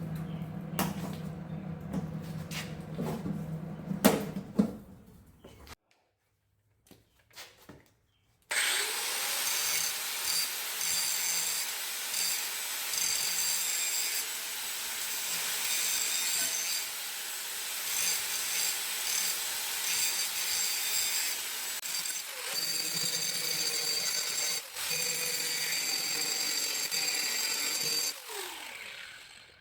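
Angle grinder spinning up and grinding down fresh welds on steel: a steady, loud whir with a high whine, winding down near the end. Before it, for the first few seconds, a low buzz with crackling clicks, then a short pause.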